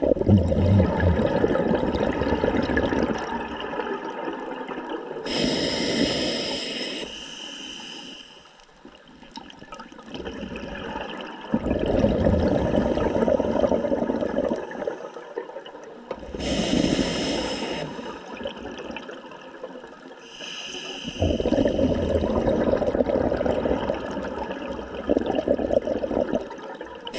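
Open-circuit scuba regulator breathing underwater: three long gushes of exhaled bubbles alternate with two shorter hisses of inhaling through the demand valve, about ten seconds per breath.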